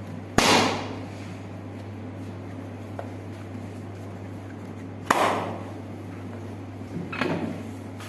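Sharp hand slaps on the body during a massage: two loud single slaps about five seconds apart, then a softer double one near the end, over a steady low hum.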